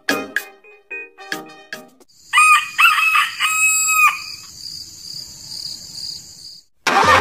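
Bouncy children's music with short plucked notes, then a rooster crowing for about two seconds. Just before the end a tractor engine sound cuts in abruptly and loudly.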